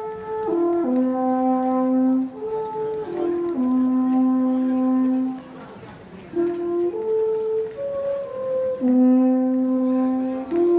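Alphorn played solo: phrases of long held notes stepping up and down in pitch, with a pause for breath about halfway through.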